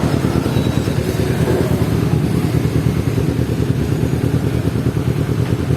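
Motorcycle engine running steadily with a fast, even pulse, amid road traffic noise.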